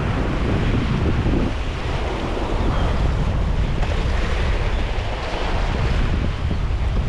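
Wind buffeting the microphone over sea surf washing on a rocky shore: a steady rushing noise with a heavy low rumble.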